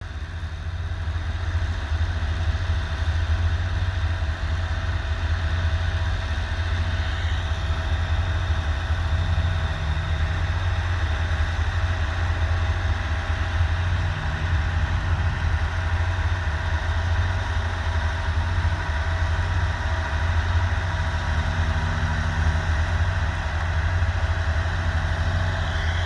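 Massey Ferguson tractor's diesel engine running steadily with a deep, even throb and a faint steady tone above it.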